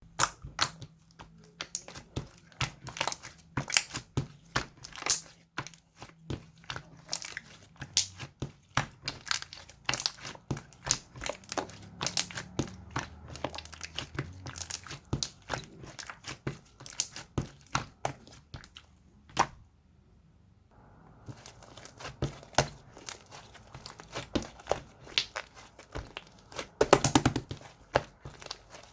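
Slime being squished and pressed by hand, giving off irregular sharp crackling pops and clicks, with a short pause about two-thirds of the way through.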